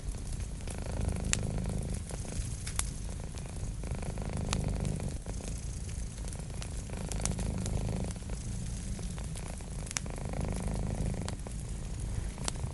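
A cat purring steadily in a low rumble that swells and eases every couple of seconds, with the scattered pops and crackles of a wood fire.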